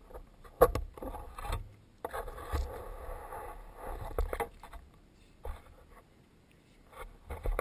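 Handling noise on a helmet-mounted camera: a sharp knock about half a second in, then irregular rubbing and scraping knocks as the wearer moves his head, easing off near the end.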